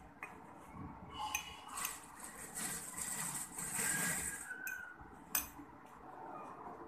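Fresh mint leaves tipped from a glass bowl and pushed with a spoon into a steel jar: the leaves rustle, with light clinks of the spoon and bowl against the steel rim. One sharp clink comes about five seconds in.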